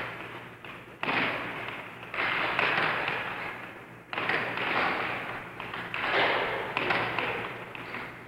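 Air hockey puck struck by mallets and banking off the table rails: several sharp cracks, each trailing off in a fading rattle, over a steady low hum.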